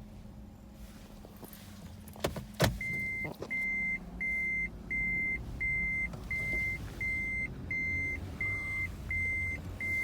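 Two sharp clicks from a 30-series Toyota Prius, a 'kachi' and then a 'kacha', after which its abnormal metallic noise stops. They are followed by the car's warning buzzer, which beeps steadily about one and a half times a second over a low hum.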